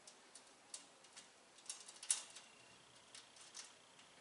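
Faint, scattered light clicks and ticks of bolts, nuts and washers being handled and fitted during tool cart assembly, with one sharper click about two seconds in.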